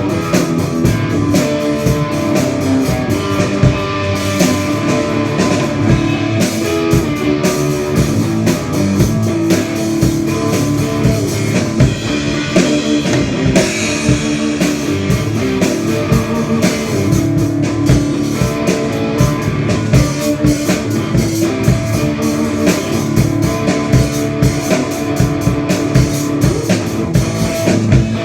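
Rock band playing loudly during a sound check: a drum kit keeps a steady beat under guitar, with no breaks.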